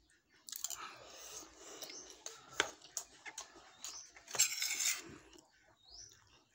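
Close-up eating sounds: a child chewing a spoonful of rice, with light clicks of a metal spoon on a plate and a short loud rustle about four and a half seconds in.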